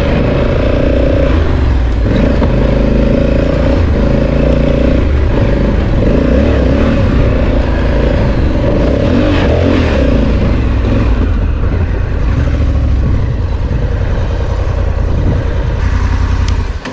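Honda Africa Twin's parallel-twin engine running as the bike is ridden along a dirt trail, its pitch rising and falling with the throttle, with some clatter. The sound drops away sharply just before the end.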